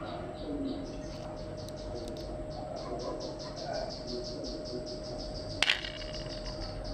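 Rapid, even, high-pitched chirping, about six chirps a second, over a faint steady hum. A single sharp click comes about five and a half seconds in.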